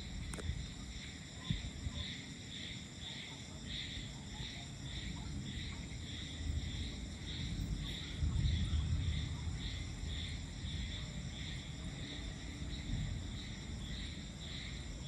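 Insects chirping in a steady rhythm, about two chirps a second, over a low rumble of distant thunder that swells about eight seconds in.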